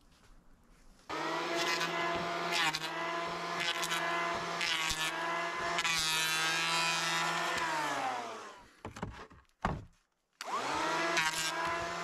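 Cordless electric hand planer starting up about a second in and running steadily with a high whine as it shaves pine boards, then spinning down with a falling pitch near eight seconds. After a brief blip it starts up again near the end.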